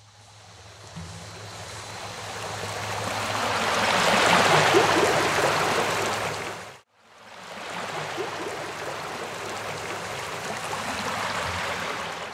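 Rushing water, swelling and fading out about seven seconds in, then starting again and holding steady before fading at the end.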